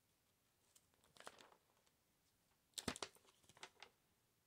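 Faint rustling of paper as the pages of a product brochure are handled and turned, in a few short rustles, the loudest a little under three seconds in.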